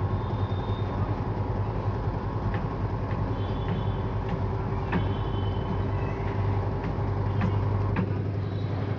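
Washing machine spinning at speed on its bare feet, a steady low hum with occasional light clicks and rattles from the cabinet shaking.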